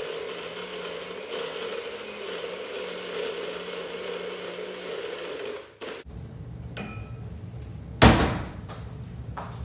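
Personal bullet-style blender running steadily while blending a fruit smoothie with ice, its motor cutting out after about six seconds. A sharp knock follows near the end as the cup is set down on the counter.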